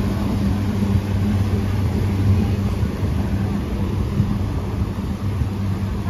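A river tour boat's engine running with a steady low hum as the boat passes close by at speed and pulls away, over the rushing noise of its churning wake.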